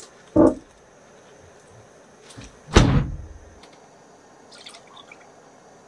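Hyundai Starex camper van's door being shut: a soft thunk, then a loud slam about three seconds in with a short low rumble after it.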